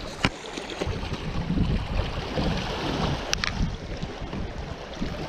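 Small waves washing and sloshing against shoreline rocks, mixed with wind on the microphone, with a couple of sharp clicks, one just after the start and another a little past halfway.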